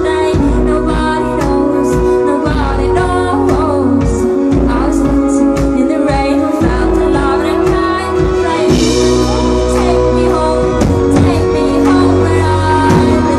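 Live band music: drums striking a steady beat under electric guitar and a deep bass line, with a woman singing into a microphone, no clear words heard.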